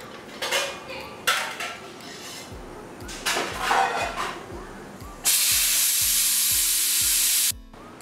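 Stovetop pressure cooker letting off steam through its weighted valve. There are a few short puffs of hiss, then about two seconds of loud, steady steam hiss as the valve blows, which cuts off suddenly.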